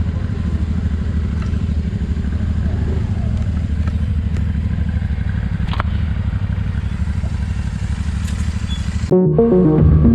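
Small scooter engine running steadily while riding, a dense low putter with no revving. Music comes in near the end.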